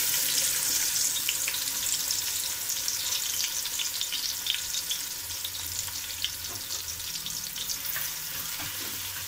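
Sliced onions sizzling and crackling in hot ghee and oil in a large metal pot, loudest as they go in and slowly settling down; a ladle stirs them near the end.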